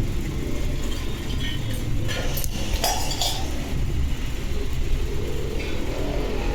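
Steel wire clinking as it is wound into a spring on a hand drill, with a cluster of sharp metallic clicks about two to three seconds in, over a steady low rumble.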